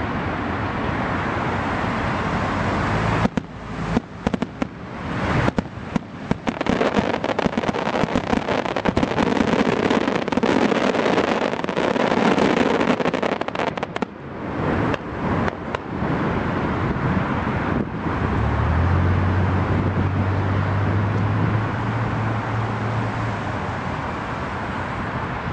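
Fireworks going off in quick succession, a dense run of sharp bangs and crackles lasting about thirteen seconds, starting about three seconds in. Before and after it there is a steady background rumble, with a low steady hum near the end.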